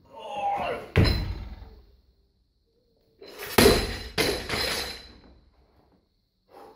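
Loaded barbell with bumper plates being lifted and dropped: a strained breath, a sharp clank about a second in as the bar comes off the floor, then two heavy thuds with a metallic ring around three and a half to four seconds in as it lands on the rubber mats and bounces.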